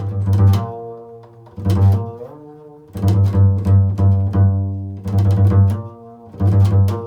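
Double bass played pizzicato in an improvised phrase: single low notes, then a quick run of plucked notes a few seconds in, each note ringing on.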